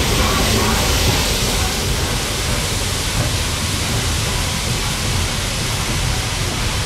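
LNER Peppercorn A1 Pacific steam locomotive 60163 Tornado and its train passing close by: a steady rushing noise of the engine, then its coaches rolling past, loudest in the first couple of seconds as the locomotive goes by.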